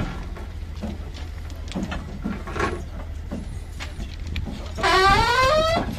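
Steady low drone of the RM900 ballast cleaning machine's diesel engine, with faint scattered knocks. About five seconds in, a loud call rises in pitch for about a second.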